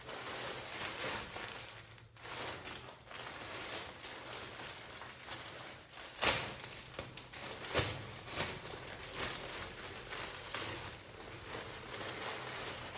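Rustling and crinkling of packaging and clothing being handled and unpacked, with a few sharper crackles.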